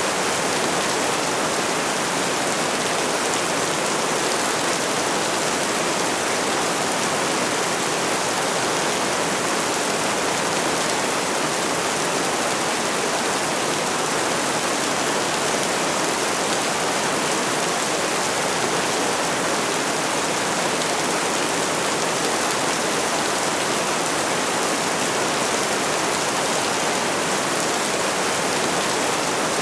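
Steady, unbroken rain, a dense even hiss of falling rain with no single drops or thunder standing out.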